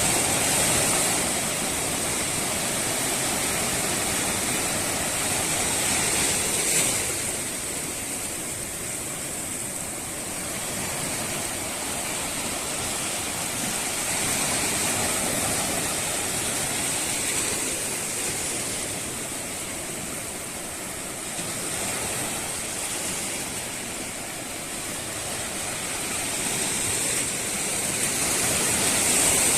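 Steady rushing of water that swells and eases every several seconds, like surf washing in, with a high steady hiss over it.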